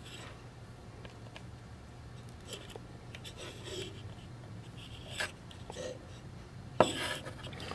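Faint scraping and tapping of small hand tools and a soldering iron working an old wire out of a solder hole, with a sharp click about seven seconds in, over a low steady hum.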